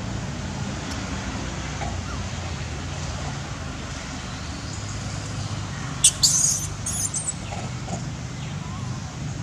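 A few short, high-pitched squeaks from long-tailed macaques about six seconds in, over a steady low rumble of background noise.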